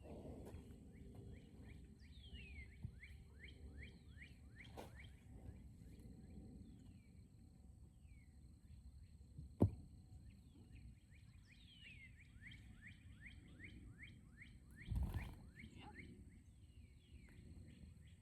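A songbird singing two runs of quick, downslurred chirps over a low steady outdoor rumble. A single sharp click about halfway through and a short dull thump near the end are the loudest sounds.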